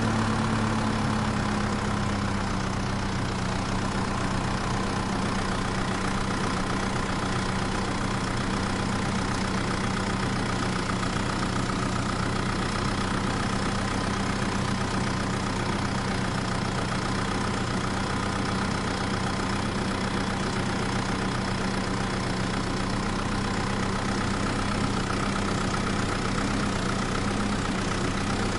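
Engine idling steadily at an unchanging pitch.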